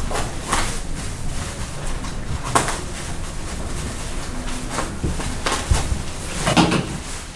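Plastic packing wrap rustling and crinkling in several short bursts as a wrapped piece is cut and pulled open by hand.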